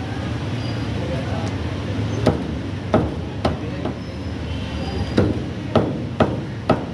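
Meat cleaver chopping raw chicken on a thick wooden chopping block: about seven sharp chops, three starting about two seconds in, then four more near the end.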